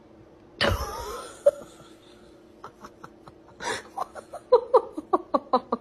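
A sudden loud noise about half a second in, followed by a person laughing in short, wheezy bursts, several a second, growing louder toward the end.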